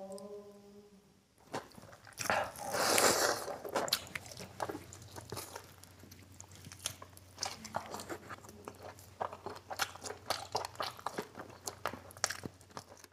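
Close-miked eating: a person biting and chewing bone-in mutton curry, with many short wet clicks and smacks. A louder wet rush comes about two seconds in.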